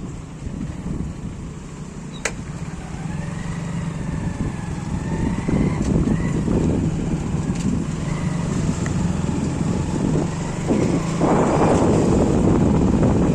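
A road vehicle running steadily with a low rumble, getting louder toward the end, with a single sharp click about two seconds in.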